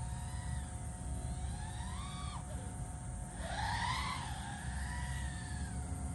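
DJI FPV quadcopter's motors and DalProp Spitfire propellers whining, the pitch rising and falling with the throttle, with its loudest surge about three and a half seconds in. A low rumble runs underneath.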